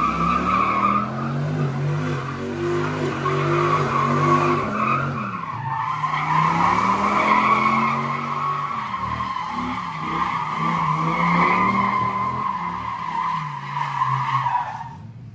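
Dodge Ram SRT-10's 8.3-litre V10 revving up and down as the truck spins donuts on concrete, with the rear tyres squealing loudly over it. The squeal drops out briefly about a third of the way in, and engine and squeal cut off sharply near the end.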